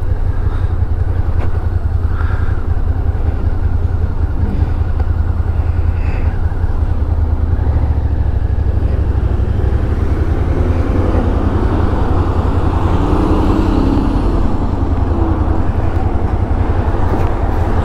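Suzuki Gladius 645 cc V-twin engine idling steadily while the motorcycle waits, then pulling away about ten seconds in, its note rising as it accelerates.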